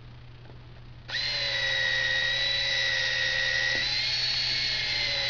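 Handheld power drill spinning a 1/4-inch reamer through the bolt holes of an aircraft brake caliper to clean them out. It starts about a second in and then runs with a steady whine.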